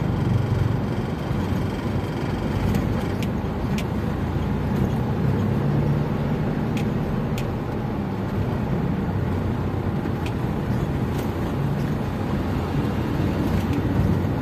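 Steady engine and road noise inside an Isuzu Panther's cabin as it drives slowly over a broken road, with a few sharp clicks every few seconds.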